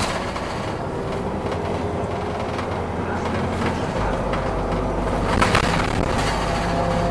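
Solaris Urbino 8.9LE city bus running along a street: a steady engine hum and road rumble with a faint whine. The engine note drops lower about halfway through, and there are a couple of brief knocks near the end.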